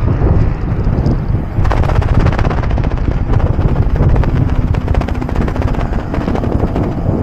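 A bicycle ridden over rough, patched pavement: a loud low rumble, with a fast clicking rattle running through it from about a second and a half in.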